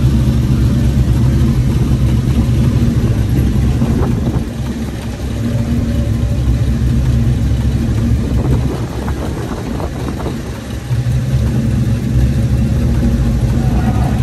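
Pickup truck engine idling steadily with a deep, even hum. It drops in level twice, about four to six seconds in and again from about eight to eleven seconds in.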